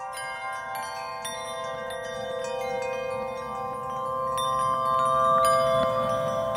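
Background music of chiming, bell-like tones struck one after another and left ringing, slowly growing louder.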